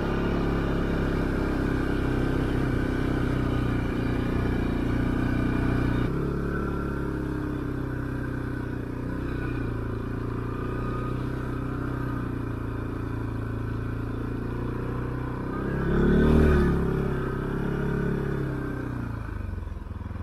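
Arctic Cat Alterra ATV engine running steadily at low speed on a snowy trail, with one brief rev that rises and falls about three-quarters of the way through.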